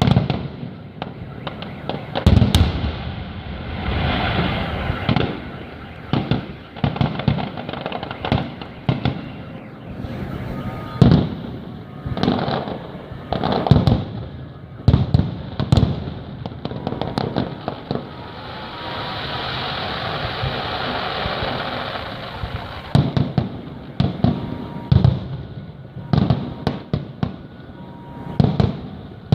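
Fireworks display: aerial shells bursting one after another at irregular intervals, some in quick clusters. A steadier stretch of noise without sharp bangs comes about two-thirds of the way through.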